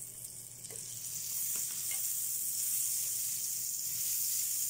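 Butter sizzling as it melts on a hot tawa griddle: a steady high hiss that builds up over about the first second and then holds.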